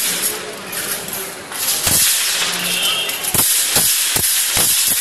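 Swords striking round metal shields in a kalaripayattu sword-and-shield bout (vaalpayattu): about six sharp clashes, one a little before halfway and the rest coming quickly near the end.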